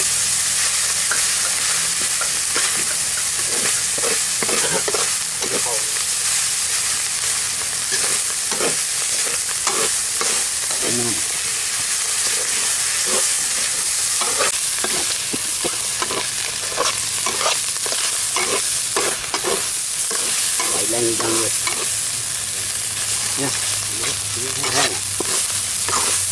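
Minced cobra meat sizzling in oil in a large wok, with a metal spatula repeatedly scraping and knocking against the wok as it is stir-fried.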